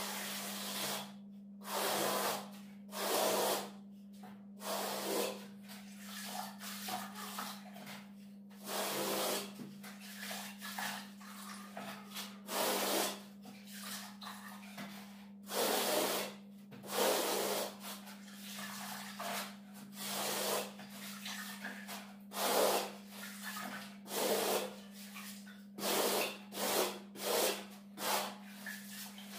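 A plastering tool rubbing and scraping bark-beetle decorative plaster across a wall in repeated irregular strokes, with a steady low hum underneath.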